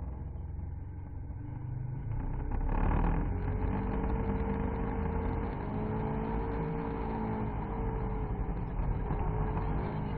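Rally car engine heard from inside the car, pulling harder about two and a half seconds in, its revs climbing and dropping back in steps as it shifts up through the gears over a steady low rumble.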